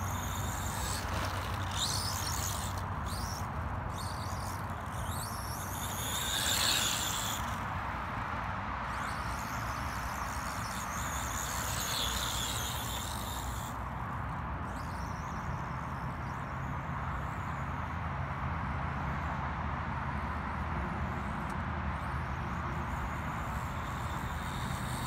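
Turnigy 1/18 scale mini electric RC stadium truck running across short grass, its motor whining in repeated bursts that rise and fall in pitch as it speeds up and passes. The loudest whines come about six and twelve seconds in.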